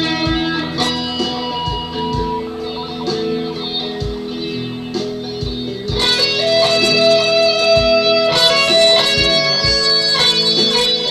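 Electric guitar played lead with held, sustained notes over a backing track with a steady kick-drum beat. It gets louder about six seconds in, where one long note is held.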